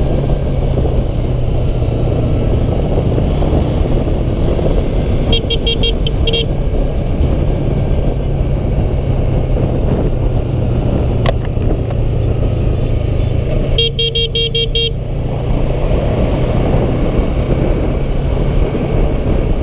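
Yamaha R3's parallel-twin engine running steadily at road speed, with road and wind noise. Twice, about five and fourteen seconds in, a horn sounds in a quick run of beeps.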